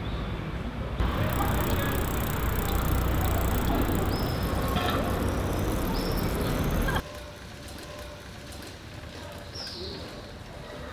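Town street ambience: a steady hum of distant traffic with a few short bird chirps. The background drops abruptly to a quieter level about seven seconds in.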